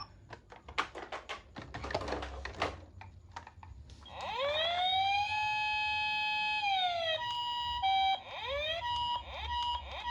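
Toy ambulance minicar's electronic siren sound. It opens with a few scattered clicks; about four seconds in, a tone rises, holds for about three seconds and falls away. Then come short beeps and quick rising whoops.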